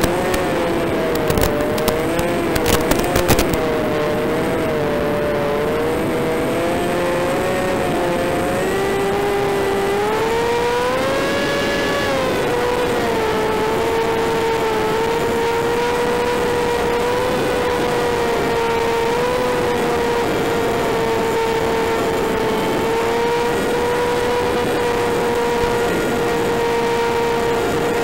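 The AR600 flying wing's electric motor and propeller whining steadily in flight under a rush of air noise. The pitch wanders with the throttle, rises about ten seconds in, then holds steady. Sharp crackles sound during the first few seconds.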